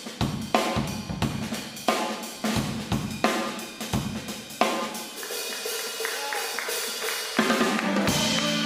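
Jazz drum kit solo: accented snare and bass-drum hits with cymbals and hi-hat. In the second half, held notes from the other instruments come in and the full band re-enters near the end.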